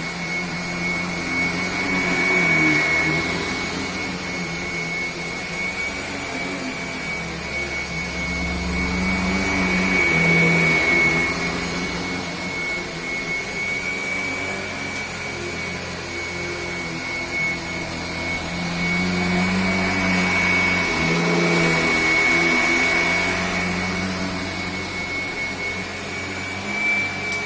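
Kirby upright vacuum cleaner running continuously with a steady high whine, growing louder and softer several times.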